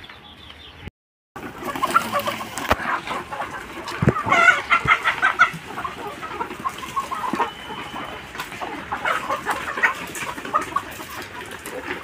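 A flock of hens clucking and squawking over one another as they crowd round scattered feed. The sound cuts out completely for about half a second, about a second in.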